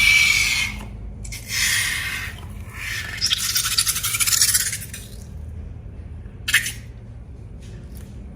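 Balloons and slime being handled: scraping and rubbing in three long hissy stretches, the third crackling, then a short squeak about six and a half seconds in and a few faint clicks.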